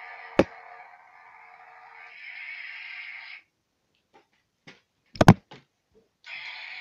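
Plastic toy lightsabers knocking together: a sharp click just after the start, then two loud knocks close together about five seconds in, over a faint steady hiss that cuts out partway.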